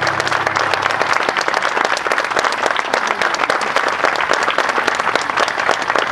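Audience applauding, a dense steady clapping. The last low note of the music dies away about a second in.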